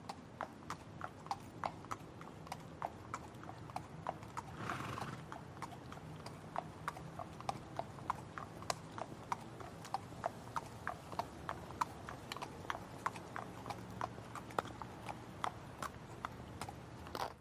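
Horse's hooves galloping in a steady run of sharp strikes, about three a second, with a short breathy burst about five seconds in.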